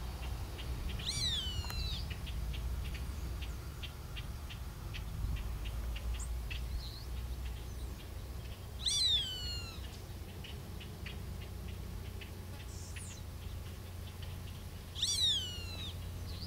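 A hawk calling three times, each a loud call that falls in pitch over about a second: about a second in, at about nine seconds, and near the end. A steady low rumble and faint scattered clicks lie underneath.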